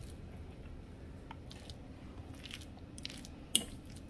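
Shredded chicken salad dressed with mayonnaise being stirred in a glass bowl: soft, irregular squishing and scraping, with one sharper tap of the utensil on the glass about three and a half seconds in.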